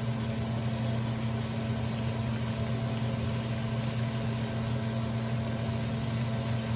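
Breaded chicken pieces deep-frying in a pan of hot oil: a steady sizzle, with tongs moving the pieces, over a steady low hum.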